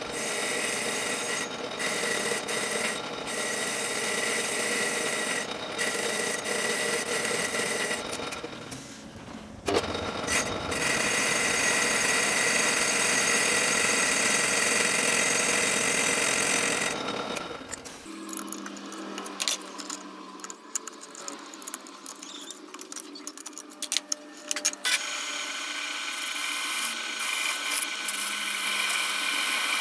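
A power tool or machine running steadily, with several steady whining tones, dipping briefly about a third of the way in. After a change about 18 seconds in come scattered clicks and knocks, then a steady high whine.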